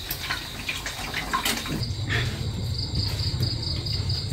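Running water with small clicks and splashes, then from about two seconds in an insect starts a steady, high-pitched pulsing trill.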